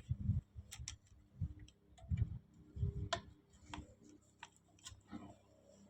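Scattered light clicks and dull knocks of hand work in the engine bay as a radiator hose is fitted back onto the engine, spaced irregularly.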